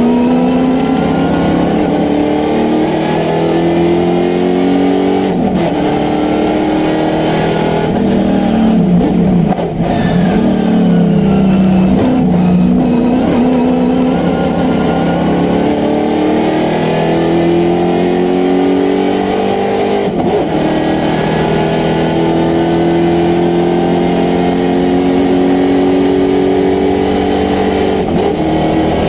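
VK Commodore sports sedan's racing engine, heard from inside the cabin, pulling hard with its pitch climbing through each gear and dropping back at every upshift. A little before halfway it falls away as the car brakes and downshifts for a corner, then it pulls again up through the gears, accelerating to about 200 km/h.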